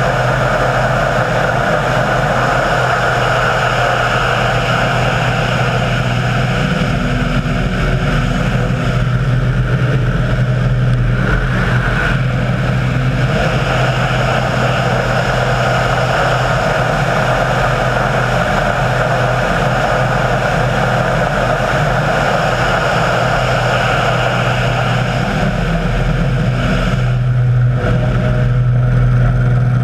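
Model aircraft engine running steadily at high throttle, a loud, even buzz that swells slightly near the end.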